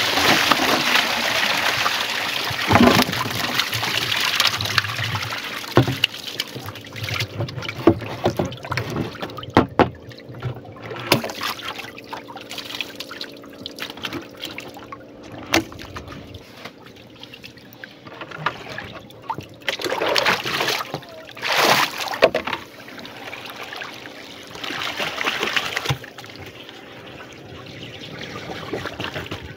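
Water pouring and splashing out of a rubber bucket trap tipped over the side of a wooden canoe for the first several seconds. It then dwindles to trickles, with scattered knocks and a few short splashes.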